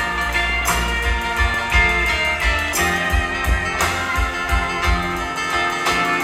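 Live band playing an instrumental break: guitars over a pulsing bass and drums, with strong accents about once a second.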